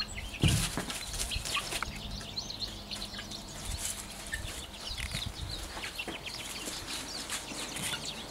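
Young hens clucking and peeping softly in short, scattered calls, with a thump about half a second in.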